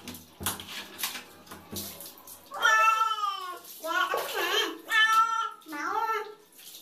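A wet domestic cat meowing four times while being bathed, in long drawn-out cries that fall in pitch. Before the cries, water splashes and sloshes from a dipper.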